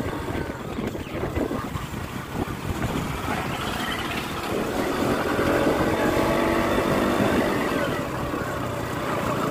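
Wind buffeting the microphone over the sound of a moving motorcycle's engine. About halfway through, a steady engine note comes up, then eases off near the end.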